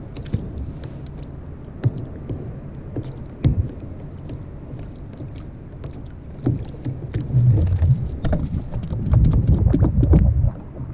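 Wind buffeting the microphone on a kayak at sea, with small knocks and rustling from handling gear in the lap. The buffeting comes in heavy gusts for the last few seconds.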